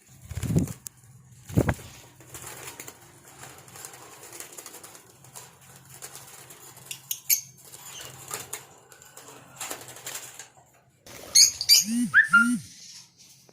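Lovebirds flapping their wings in flight, with a couple of heavy wingbeat thumps in the first two seconds, and shrill chirps, the loudest a cluster of them near the end.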